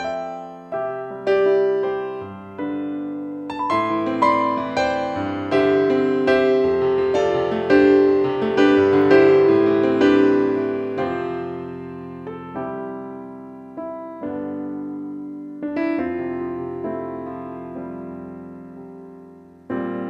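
Background piano music: slow, gentle chords and single notes that ring and fade, growing fuller toward the middle and thinning out again.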